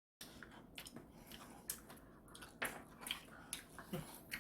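Faint close-up eating sounds of fried chicken being bitten and chewed: scattered soft clicks and crunches.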